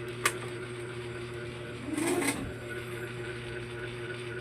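A single sharp click, then a brief half-second whirr about two seconds in, over a steady low hum, just before a Yamaha Mio i 125 scooter engine is started.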